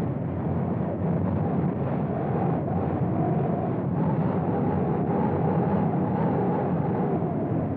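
Strong storm wind blowing in gusts: a steady, deep rushing that swells and eases slightly.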